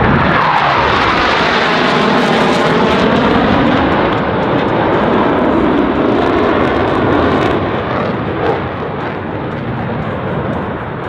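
F/A-18 Hornet jets passing by loudly, their engine noise sweeping down in pitch as they go past, then easing off about eight seconds in.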